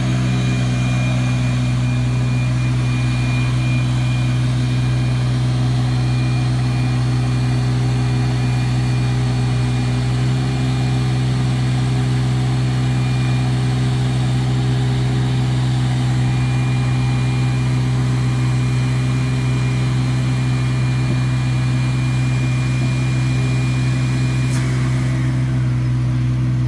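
Mini excavator's diesel engine running steadily while its boom works a vacuum slab lifter. A thin, high steady whine over the engine cuts off with a click near the end.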